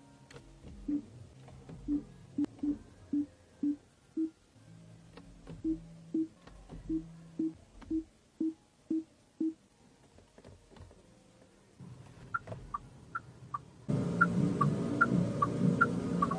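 Background music: soft, short plucked notes about twice a second over low held notes. Near the end it jumps suddenly much louder and fuller, with a regular pattern of higher notes.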